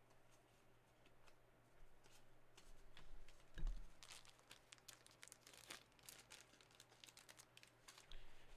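Faint rustling and crinkling with scattered small clicks as trading cards and their packaging are handled, with a soft knock about three and a half seconds in.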